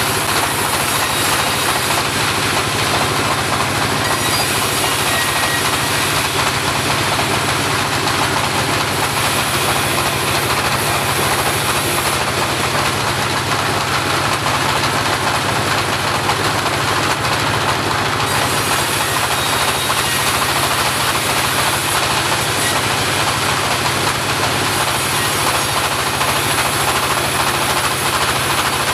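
Homemade portable bandsaw running steadily, its engine and blade giving a continuous even noise with a low hum.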